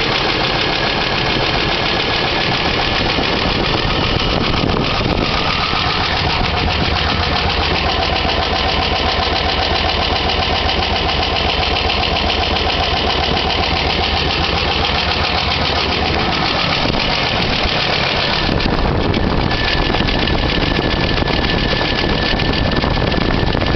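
1999 Chevrolet Blazer's 4.3-litre V6 engine running with a rapid, steady ticking. A steady tone joins in through the middle stretch and fades out near the end.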